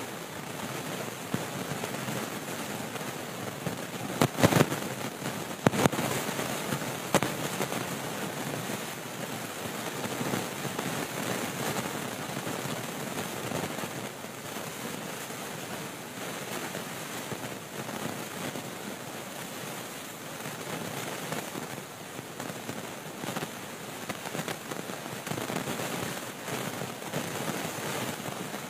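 Heavy storm rain and gusting wind, a steady hiss, broken by a few sharp bangs, the loudest about four and six seconds in.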